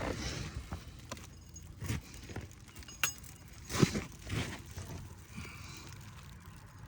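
Scattered knocks, clicks and rustling of hands and tools working asphalt roof shingles. There is a sharp click about three seconds in and the loudest knock about a second later.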